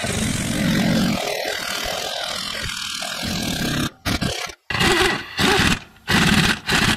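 Power tool running a socket on a long extension to drive in the top mount bolts: one long run of about four seconds, then four short trigger bursts.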